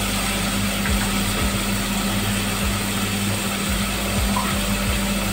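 Masala frying in oil in an aluminium pot, a steady sizzling hiss over a constant low hum from the stove or kitchen.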